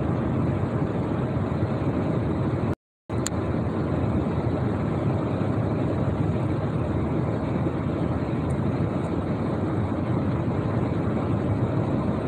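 Steady road and engine noise heard inside the cabin of a vehicle moving at highway speed. About three seconds in, the sound cuts out completely for a fraction of a second.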